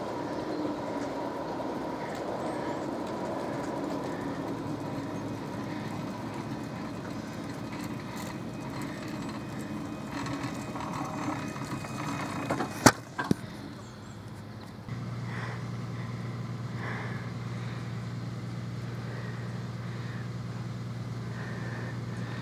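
Ride-on miniature diesel-outline locomotive running along the track, a steady hum with a thin whine over it. A sharp knock comes about 13 seconds in, and after it a steady low drone.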